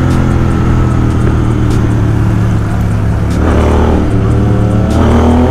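Royal Enfield 650 parallel-twin engine with an aftermarket exhaust, heard on board while riding: a loud, steady drone that dips briefly about three seconds in, then rises in pitch as the bike accelerates near the end.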